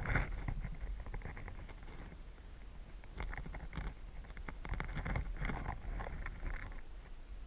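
River current over a gravel bed, heard underwater through a GoPro housing: a steady low rumble with irregular clusters of clicks and crackles.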